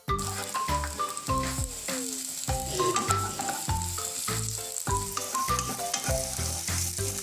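Sliced shallots and garlic sizzling in hot oil in a wok while being stirred with a wooden spatula, a steady frying hiss, over background music with a steady beat.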